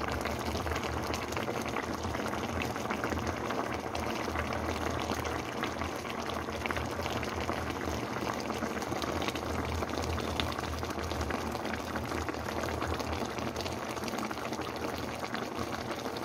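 Vegetable stew in tomato sauce bubbling at a steady boil in a pan: an even hiss thick with small pops of bursting bubbles.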